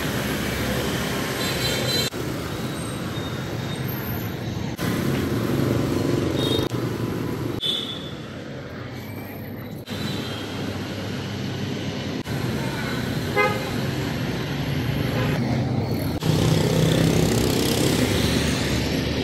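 Busy motorbike and scooter street traffic, with engines running and horns beeping now and then. The sound changes abruptly every few seconds as one short street clip cuts to the next.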